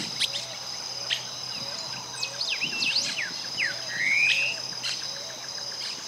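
Streaked flycatcher calling: a run of short, sharp, high squeaky notes and quick downward slurs, with one longer rising note about four seconds in. A steady high insect drone runs underneath.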